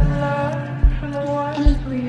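Background music with a steady beat: a heavy low kick drum hits about every 0.8 seconds under sustained held tones.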